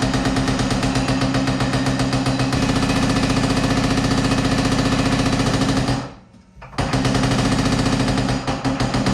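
Motor-driven sheet-metal shaping machine running, its ram striking the steel panel in a fast, steady hammering with a motor hum underneath. It stops abruptly about six seconds in and starts again under a second later.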